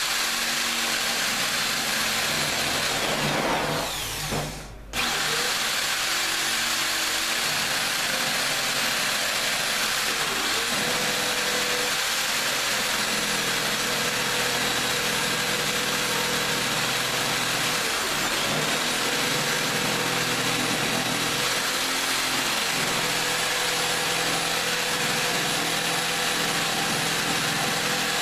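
Electric jigsaw cutting through a laminated particle-board kitchen worktop, made of resin-impregnated paper over glued wood chips, with a steady running noise. About four seconds in the motor winds down briefly, then starts again and runs on steadily.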